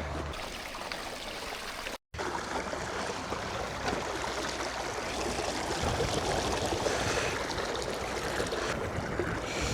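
River water running over rocks, a steady rushing wash that cuts out for a moment about two seconds in.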